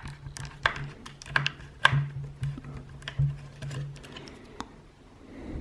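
Irregular small clicks and taps of hands and tools on the plastic speaker housing and its circuit board during disassembly, thinning out near the end.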